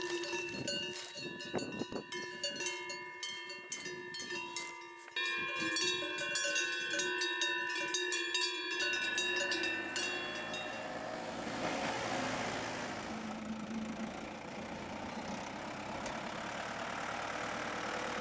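Cowbells clanking and ringing for about the first half, many bells at different pitches. Then a steady, even noise takes over.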